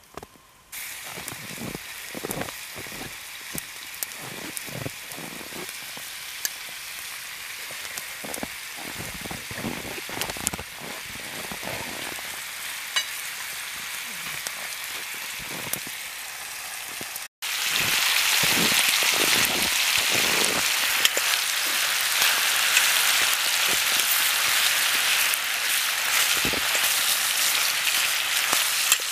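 Food sizzling in a frying pan over a wood campfire, a steady hiss broken by soft knocks as the pan is handled and shaken. The sizzle is louder from about seventeen seconds in.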